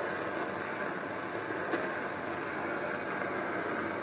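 Handheld propane torch burning with a steady rushing hiss as its flame heats an aluminium strip for bending. A single light tick comes just under two seconds in.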